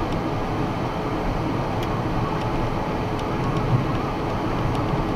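Steady road and engine noise inside a box truck's cab at highway speed, about 55 mph, with a faint steady hum and a few light ticks.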